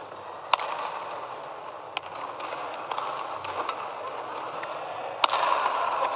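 Badminton rackets striking a shuttlecock in a fast rally: sharp cracks every second or so, the hardest hit about five seconds in. Underneath is a steady hum of hall and crowd noise that grows louder after that hit.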